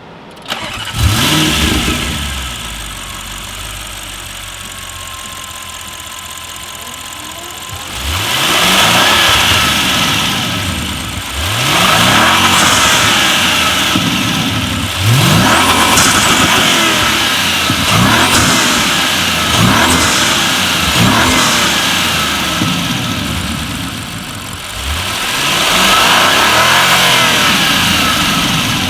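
Audi RS6 Performance's 4.0 TFSI twin-turbo V8 through an Akrapovic exhaust. It starts with a sudden flare about a second in and settles to a steady idle. From about eight seconds in it is revved and let fall back about seven times.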